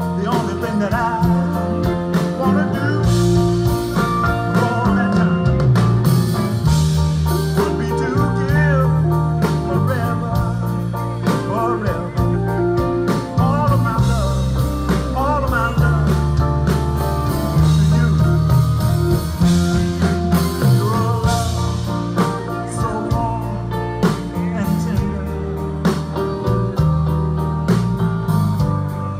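Live band playing an instrumental passage of a slow New Orleans R&B song on grand piano, organ, electric bass and electric guitar, with a moving bass line under held and bending melody notes.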